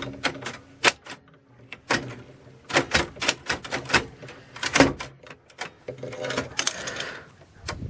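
Royal manual typewriter keys being struck, irregular sharp clacks of the typebars hitting the platen, with a longer rattling sound near the end.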